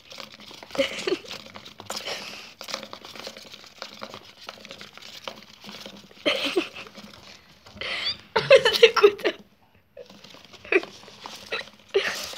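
Hamsters scuffling and chasing each other on the floor of a cardboard box: claws scrabbling and patting on the cardboard, with a few louder bursts about halfway and two-thirds of the way through.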